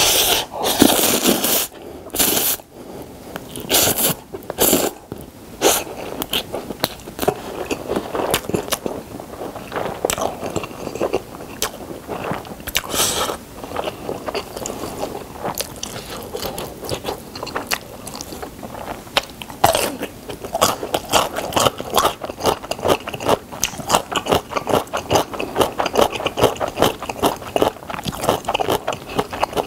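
Close-miked eating: loud slurps of Buldak spicy stir-fried instant noodles in the first few seconds, then steady wet chewing with many quick mouth smacks and clicks.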